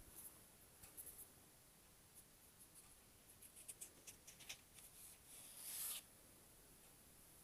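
Faint dabbing of a sponge laying white acrylic paint onto a painted box lid: scattered soft taps, then a short rub near the end.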